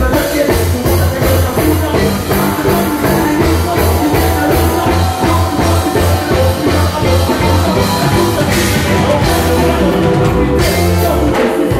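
Live band music played loud through a stage PA: a pulsing bass line under drums and keyboards.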